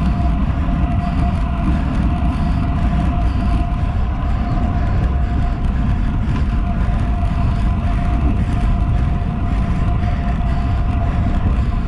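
Wind buffeting the microphone of a handlebar-mounted GoPro on a road bike riding at about 37 km/h, over the rolling of Roval Rapide CLX50 carbon wheels on asphalt. A steady hum sits above the noise.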